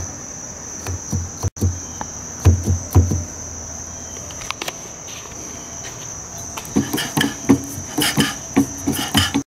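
Half-horsepower A. J. Weed marine steam engine turning over slowly on compressed air, its rods, crank and valve gear giving soft, irregular knocks and clicks, which grow quicker and more crowded near the end. A cricket keeps up a steady high trill behind it.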